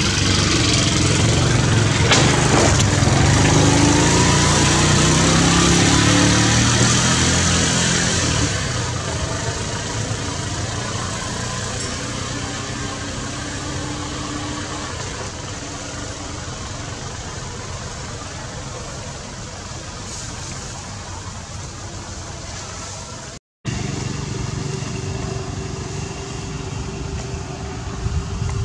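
A motor engine runs, loud for the first several seconds with its pitch rising, then fades to a steady low hum.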